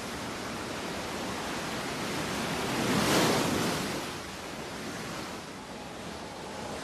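Sea waves washing at the surface, with one wave swelling and breaking about three seconds in.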